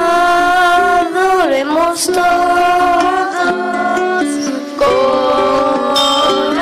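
Music group singing a hymn with plucked-string accompaniment, the voices holding long notes.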